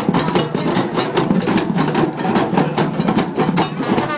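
A drum circle of many hand drums played together in a fast, dense rhythm, the strikes overlapping at several a second.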